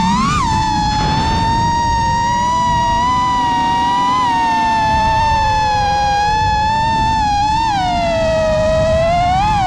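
FPV quadcopter's Xing 2207 2450KV brushless motors and 5x4 propellers whining in flight: a steady high-pitched tone whose pitch dips and swoops up with throttle changes, with quick rises about half a second in and twice near the end. Wind rush on the onboard camera's microphone lies underneath.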